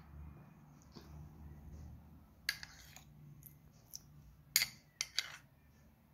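Metal spoon clinking lightly against a small glass bowl as food colouring is spooned over biryani rice: a few sharp clinks, one about halfway and three in quick succession near the end, over a faint low hum.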